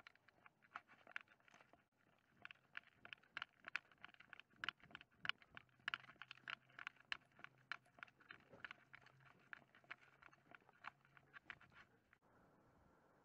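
Faint, irregular ticking and tapping, several a second, from a German Shepherd walking on pavement with an action camera strapped to her back. The tapping stops abruptly near the end and gives way to a faint steady hiss.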